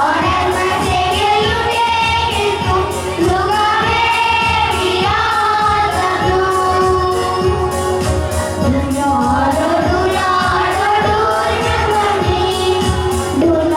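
A song with singing over musical accompaniment and a steady beat, the melody held in long sung lines.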